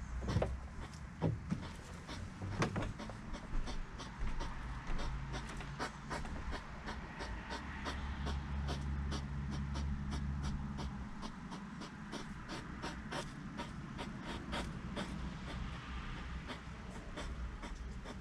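Hedgehogs crunching sunflower seeds: a dense run of quick, crisp clicks all through. A low rumble swells in the background for a few seconds in the middle.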